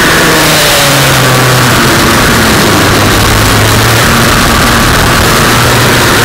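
Racing kart engine heard from the kart's own onboard camera, loud throughout. Its pitch falls in the first second as the kart slows for a bend, stays low through the turn, then climbs again about four seconds in as the driver gets back on the throttle. A constant loud hiss runs under it.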